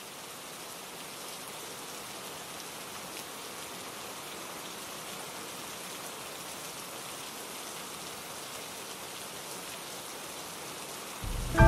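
Steady, soft hiss of light rain falling on the pond and the grass around it. Music comes in just before the end.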